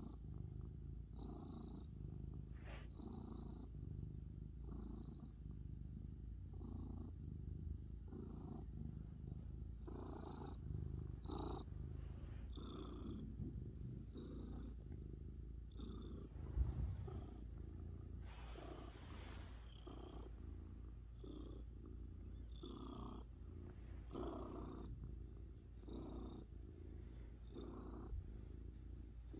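Domestic cat purring close to the microphone while being stroked, a steady low purr that pulses with each breath every second or two. A single brief knock about halfway through is the loudest moment.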